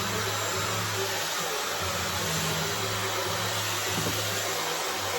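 Dyson hair dryer running steadily, an even rush of blown air.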